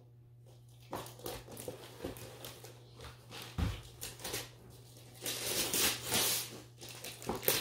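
Wrapping paper rustling and tearing as a present is unwrapped: irregular crackling and crinkling, loudest a little past the middle.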